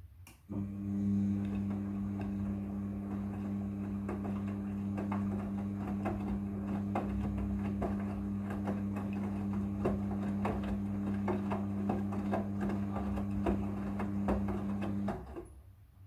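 Midea front-loading washing machine's drum motor running with a steady hum while the wet blanket tumbles, making many small knocks inside the drum. The motor starts about half a second in and stops near the end.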